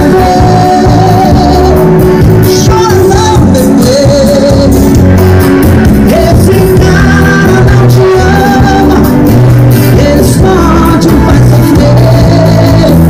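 Loud music with a sung vocal and heavy bass notes moving in steps, played through an Eros Hammer 7.2K 3,600 W RMS subwoofer.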